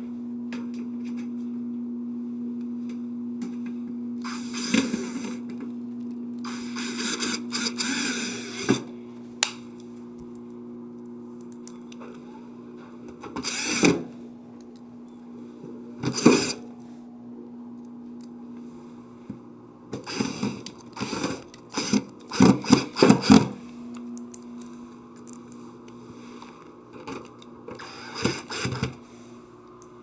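Cordless drill/driver running in several short bursts as it drives Phillips screws into a refrigerator's sheet-metal rear panel, the longest runs a few seconds in and a quick cluster about two-thirds through. A steady low hum runs beneath.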